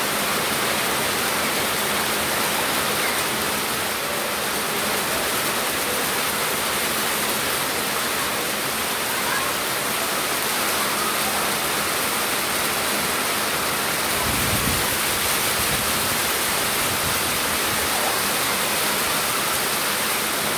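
Steady rushing hiss of water, even and unbroken, with a brief low rumble about fourteen seconds in.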